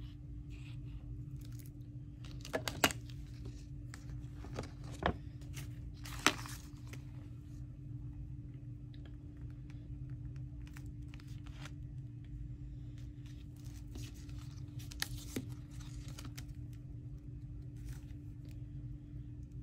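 Paper pages being handled and pressed while glue is applied: scattered crinkles and a few sharp clicks, the loudest about three and six seconds in, over a steady low hum.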